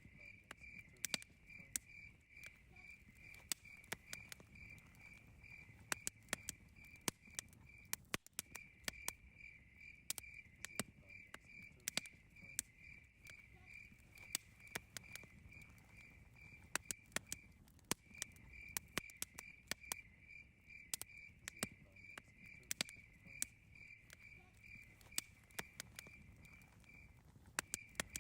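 Campfire crackling with frequent sharp pops over a low rustle, while a cricket chirps steadily at a high pitch in even pulses, falling silent briefly about every nine seconds.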